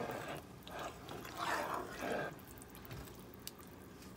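A spatula stirring wet rice in tomato sauce in a pot: a few wet sloshing strokes in the first two seconds or so, then quieter.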